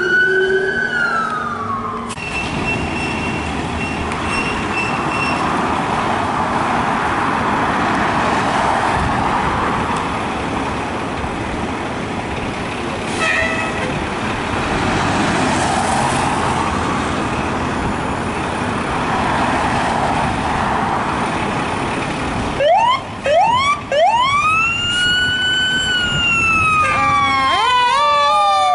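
Emergency vehicle sirens: a falling siren wail at first, then a long stretch of heavy vehicle and road noise. About 23 seconds in, electronic siren whoops and a rising and falling wail start, switching to a fast warbling yelp near the end.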